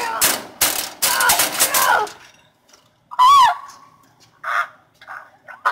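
Loud, harsh shrieks and screeches from a person playing a caged monkey, with a piercing squeal a little after three seconds in, the loudest moment, then a few short cries.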